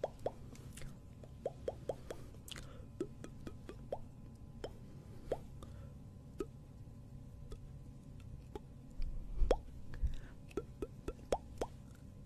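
Fingers and long acrylic nails working right against a microphone, making scattered small pops that rise in pitch and sharp little clicks at an irregular pace, with one heavier low bump about nine and a half seconds in.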